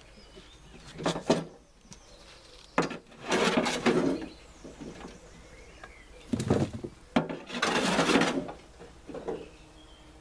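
Work at a tomato-feed tub: a few knocks, then two scraping or shovelling rushes about a second long each, with more knocks between them.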